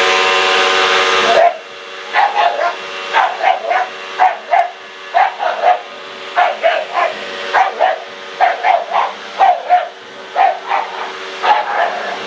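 Vacuum cleaner running with a steady whine, loud at first and dropping suddenly to a quieter hum about a second and a half in. A bull terrier then barks over it again and again, about two to three short barks a second.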